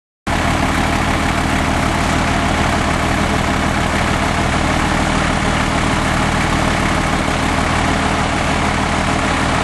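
Small Yanmar diesel tractor engine running steadily while pulling on a chain hitched to a stuck diesel pickup, cutting in abruptly about a quarter second in.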